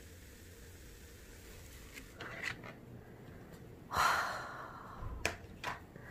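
Cola poured over ice, fizzing faintly, then a short loud rustle about four seconds in as the plastic lid comes off a delivery food tray, followed by a couple of light clicks.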